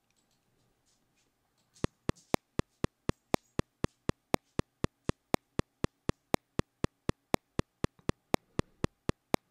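Cubase 9.5 software metronome playing its double-tempo click pattern, eight clicks to a 4/4 measure. Short, sharp clicks start about two seconds in and keep an even pulse of about four a second, some louder than others.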